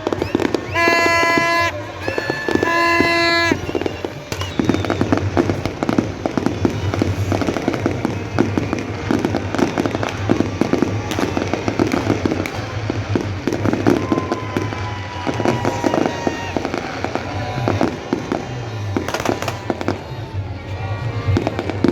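Fireworks display: dense, rapid bangs and crackling of bursting fireworks, over music. Loud held musical notes sound in the first few seconds before the crackle takes over.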